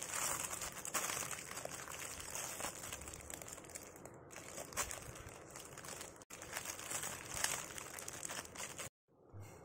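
Thin clear plastic polybag crinkling and rustling as hands handle it and open it, a continuous dense crinkle with sharper crackles. It cuts out suddenly for a moment about nine seconds in.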